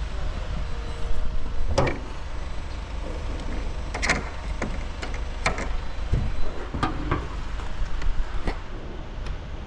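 A steady low rumble with a series of about eight sharp clunks and knocks at uneven intervals, like doors or metal panels being handled.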